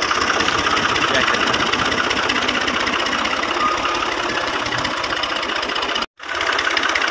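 Tractor diesel engine running steadily at low speed while being manoeuvred into place. The sound cuts out completely for a moment about six seconds in.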